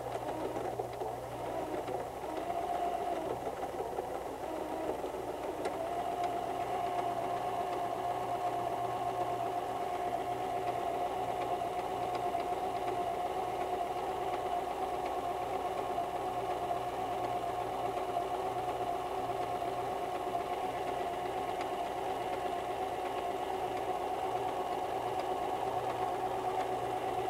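White 1735 electric sewing machine running continuously, sewing a seam overcast stitch through fabric. Its pitch wavers over the first few seconds as it gets up to speed, then holds steady.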